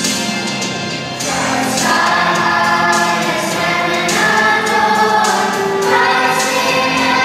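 Children's choir singing a Christmas carol. The voices come in about a second and a half in, after a short instrumental passage.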